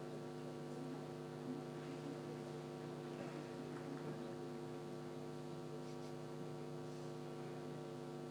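Steady electrical mains hum: a low, even buzz with several overtones.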